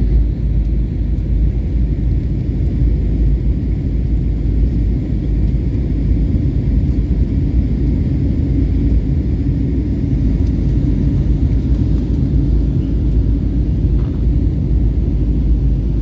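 Steady low rumble of an airliner's jet engines and rushing air, heard from inside the passenger cabin in flight.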